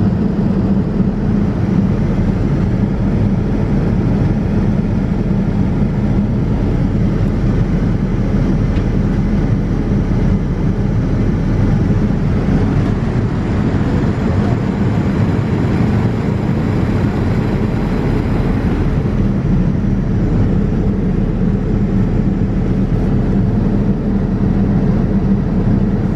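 Steady cabin noise of a Boeing 787-9 in cruise: a constant low rush that holds the same level throughout.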